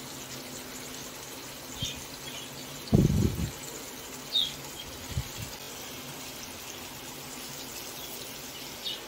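Rohu fish steaks sizzling steadily in hot oil in a frying pan while metal tongs turn them over, with a few light clicks of the tongs and a dull thud about three seconds in as a steak is flipped onto the pan.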